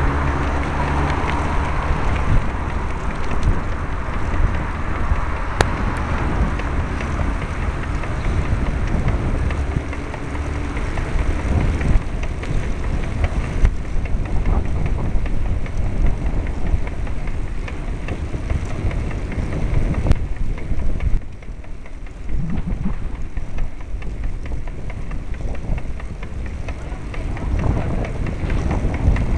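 Wind buffeting the microphone of a bicycle-mounted camera, with road noise from the moving bike. A motor vehicle's engine is heard in the first couple of seconds.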